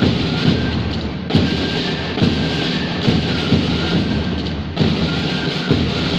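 School marching band playing, led by its drums: a continuous drum clatter with a heavier stroke about once a second.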